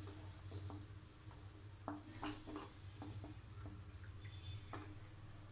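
Wooden spatula stirring a thick tomato-onion paste in melted butter in a ceramic-coated pan: faint scraping with a few soft knocks against the pan, over a light sizzle.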